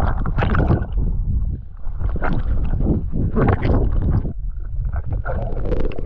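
Muffled rushing and sloshing of water against an action camera's waterproof housing as a swimmer moves underwater, rising in a few surges.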